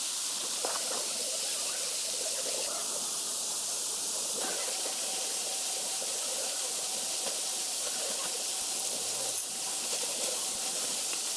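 Steady rushing hiss of a waterfall, even and unbroken.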